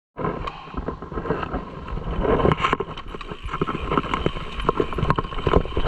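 Bicycle rattling and clattering over a rough dirt trail, with irregular knocks and wind rumbling on the microphone.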